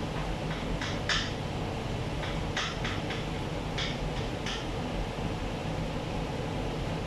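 Steady hum of a kitchen ventilation fan with a low drone under it, broken by a few brief, sharp noises.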